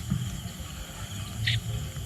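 Steady drone of insects, over a low rumble, with one short high chirp about one and a half seconds in.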